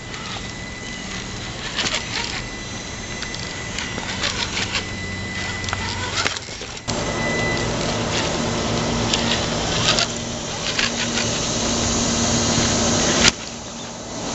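Electric motor and gear drive of an Axial-based RC rock crawler whining as it creeps over rocks, with tyres and chassis clicking and scraping on stone.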